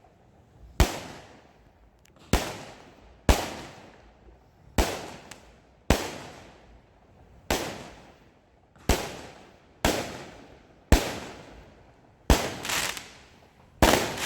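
Aerial fireworks shells bursting: about a dozen sharp bangs, roughly one every second or so, each followed by a fading rumble and echo. Near the end, two bursts come close together.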